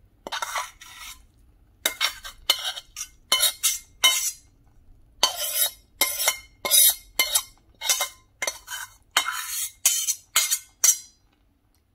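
A metal spoon scraping wet, cooked vegetables out of a stainless steel pan into a saucepan. It goes in a run of short metal-on-metal scrapes, about two a second, with a brief pause midway, and stops about a second before the end.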